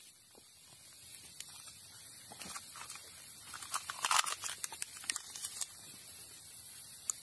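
Crinkling and crackling as tinder and a plastic bag are handled at a small newly lit fire, in a cluster of crackles loudest about four seconds in, over a steady high hiss.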